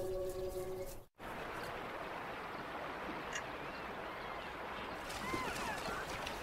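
Steady rush of a shallow river's running water. A held music chord ends just before it, about a second in.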